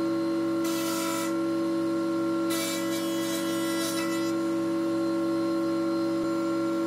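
Shaper running with a steady high whine while its straight bit cuts rabbets in beech flooring planks, with two short bursts of hissing cutting noise, about one second in and again around three seconds in, as the wood is fed past the bit.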